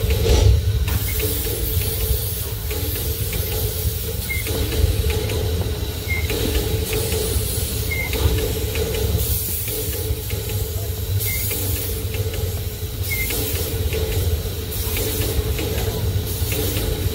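Ridable miniature-railway locomotive and its cars running along the track: a steady low rumble under bursts of hissing, with a small click about every two seconds as the wheels pass rail joints.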